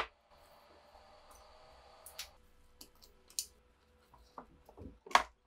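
Gloved hands handling a clear plastic tub and a glass tank on a tabletop: a sharp knock at the start, then scattered light clicks and taps, and a louder knock near the end.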